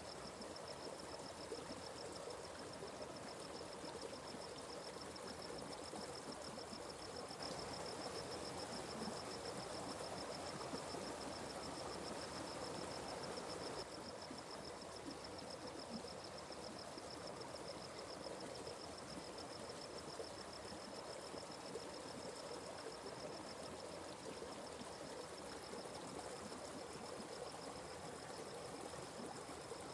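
A small forest stream running, a steady wash of water, slightly fuller for a few seconds in the first half. Over it, a continuous high-pitched trill pulses rapidly.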